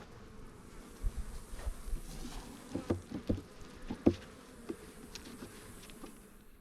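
Honeybees buzzing steadily around an open hive, with several sharp knocks and clicks between about one and four and a half seconds in.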